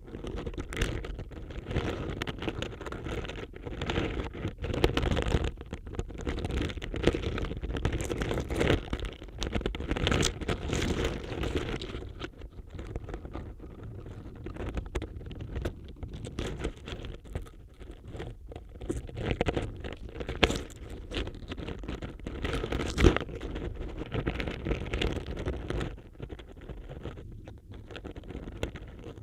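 Dry autumn leaves crackling and rustling, picked up through a contact microphone on a borescope as it moves among them. Dense crunchy crackles for the first twelve seconds or so, then quieter and sparser, with one sharp louder snap about 23 seconds in.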